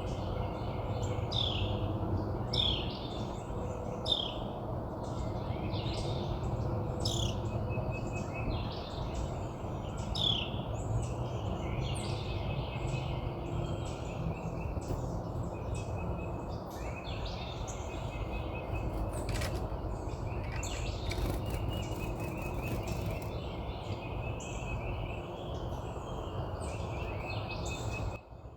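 Small wild songbirds chirping and calling: quick, falling chirps repeated many times, then short trilled notes. A steady low rumble runs underneath, and a few sharp clicks come about two-thirds of the way through.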